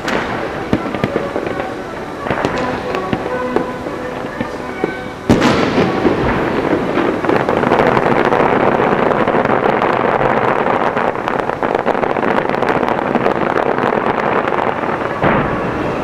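Fireworks bursting and crackling, scattered cracks at first, then a sudden loud boom about five seconds in that opens a dense, continuous barrage of crackling, which eases off near the end.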